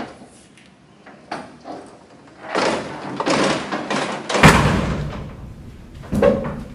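Heavy elevator doors sliding open: a rumbling slide that swells, then a loud clank about four and a half seconds in and another knock near the end.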